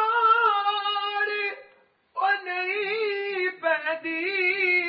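A single high voice singing without accompaniment, holding long notes with a wavering pitch. It breaks off for a moment about two seconds in, then carries on.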